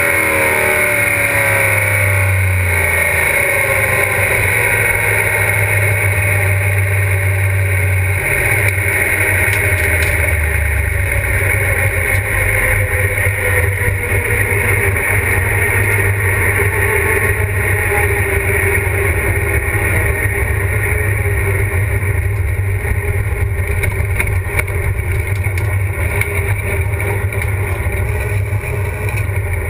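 Drag-race Pontiac GTO's engine heard from inside the cockpit, dropping in pitch as it winds down over the first few seconds, then running steadily at low revs.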